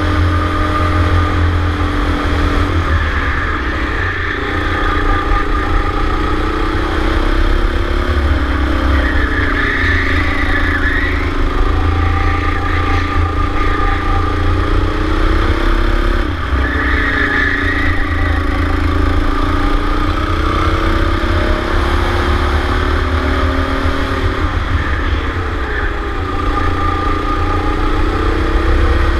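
Go-kart engine heard from on board at race pace. Its pitch climbs steadily along each straight and drops sharply about four times as the driver lifts off for corners.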